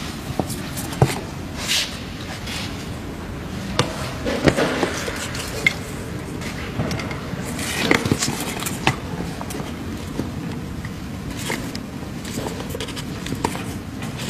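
Handling noises as plastic tubing, a small water pump and its power cord are moved about: scattered clicks, knocks and scrapes over a steady background noise.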